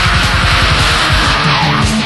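Heavy metal song: heavily distorted electric guitars over rapid, dense drumming.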